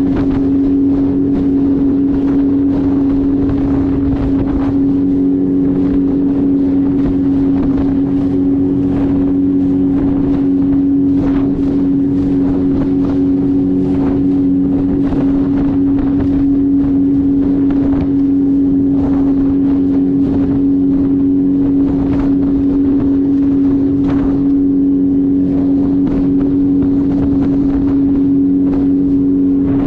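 Jet ski engine running at a steady speed, a constant droning tone that does not rise or fall, with wind buffeting the microphone.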